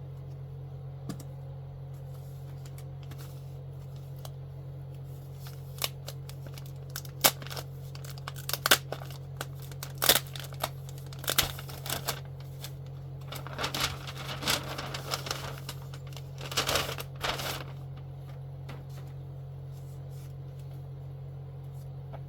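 Comic books and their packaging being handled: crinkling and rustling with sharp clicks and taps, mostly in the middle of the stretch, over a steady low hum.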